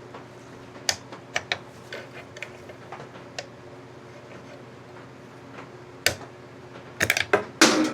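Light metallic clicks and taps of hand tools working a stuck screw in a motorcycle's stator cover, scattered at first, with one louder click about six seconds in and a quick cluster of louder clicks near the end, over a faint steady hum.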